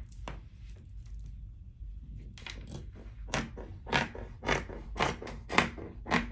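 Dressmaking shears cutting through fabric: one snip at the start, then from about two seconds in a run of sharp cuts about two a second as the blades close through the cloth.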